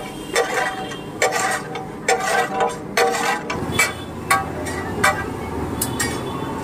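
Metal utensil clanking on a large iron pav bhaji griddle, about one ringing strike a second, as the bhaji is stirred and mashed. A low rumble comes in about halfway through.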